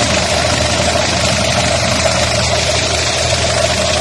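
Car engine idling steadily, with a steady mid-pitched whine over it, while its alternator's charging output is being tested.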